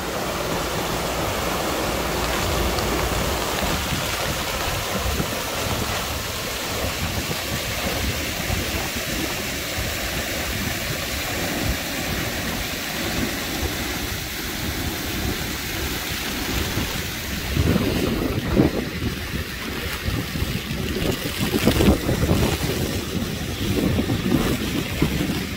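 Storm runoff pouring over a small concrete weir into a drainage channel and rushing along it in a steady torrent. From about two-thirds of the way in, gusts of wind buffet the microphone.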